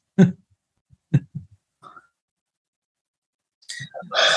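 A few short vocal sounds separated by silence, then a longer, louder sound starting near the end.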